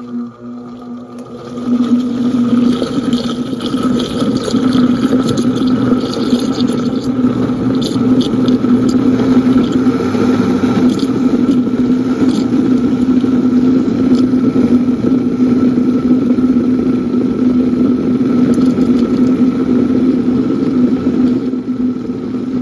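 Electric blender running steadily, pureeing cooked hot peppers, tomato and onion into a thick pepper sauce; the motor hum grows louder about two seconds in and then holds a steady pitch.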